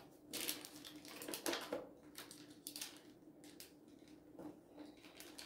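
Sticky notes and paper handled on a table: intermittent rustling and crinkling with light taps.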